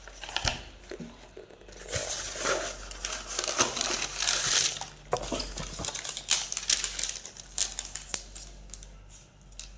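Packaging crinkling and rustling as it is handled and opened, in bursts, with scattered small clicks and taps.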